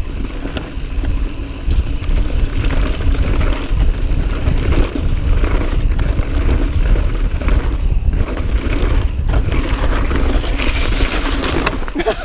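Mountain bike descending a loose, dusty dirt trail at speed: tyres crunching over dirt and stones, the bike rattling over bumps, and heavy wind rumble on the camera microphone.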